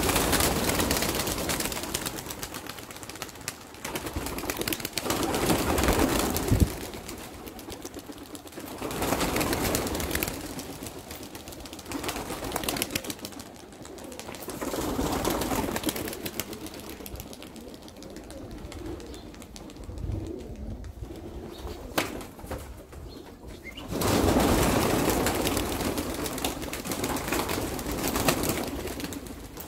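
A flock of vouta pigeons flapping as they burst out of the loft and circle overhead. The rush of wings swells and fades several times.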